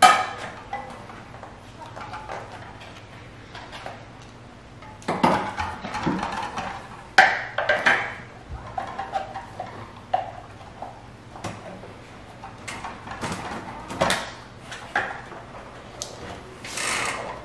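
Plastic Cush Core tire levers clacking and scraping against a mountain bike rim as a tight Maxxis DHR II tire bead is levered over it with a Cush Core insert inside. The clacks and rubber scuffs are irregular, bunched about five to eight seconds in, with another sharp clack around fourteen seconds and a longer scrape near the end.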